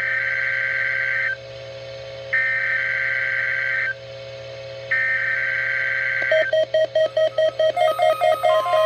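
NOAA Weather Radio SAME header: three bursts of shrill, warbling digital data tones, each about a second and a half long with about a second between them, marking the start of an alert message, here a Required Weekly Test. About six seconds in, a fast, even electronic pulsing starts, and a steady tone joins near the end.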